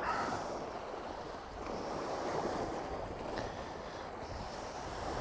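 Steady rush of wind and waves, with wind buffeting the microphone.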